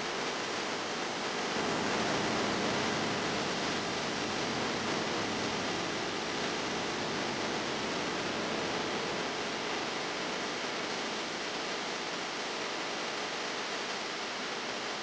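Steady rushing roar of a large waterfall, falling water crashing down close by.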